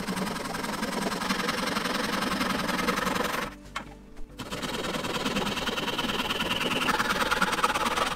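Japanese pull saw cutting through a small wooden block in quick, even strokes against a guide board. The sawing breaks off about halfway through as the cut finishes, then a second cut starts and runs on.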